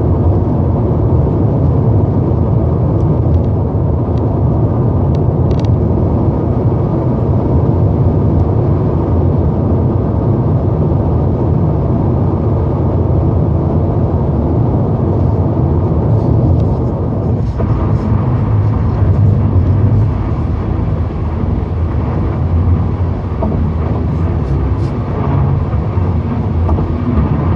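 Steady road and engine rumble inside a 2014 Lexus IS 250 on the move. A few faint, scattered ticks come through, from a rattle located in the driver's side dash near the gauges.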